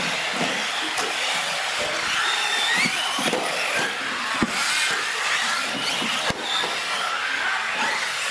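Several electric radio-controlled trucks racing on a concrete floor: a high motor whine that rises and falls with the throttle over the hiss of tyres, with a few sharp knocks of the trucks hitting each other, the ramps or the floor.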